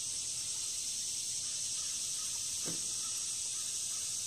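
Steady, unbroken high-pitched chorus of insects. A faint light knock about two and a half seconds in.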